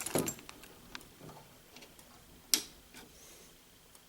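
A few light clicks and one sharper click about two and a half seconds in: a key being worked into the lock of a fire alarm pull station to reset it.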